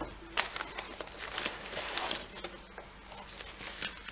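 Paper and packing material rustling and crinkling as hands rummage in a cardboard box, with scattered light clicks and taps. The rustling is densest about a second in.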